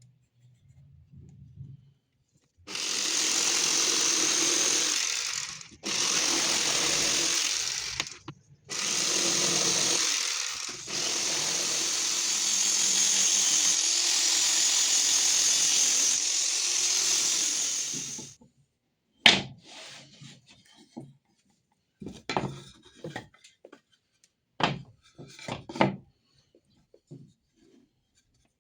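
Power tool running in four bursts, the last and longest about seven seconds, then a string of sharp knocks and clacks of wood being handled.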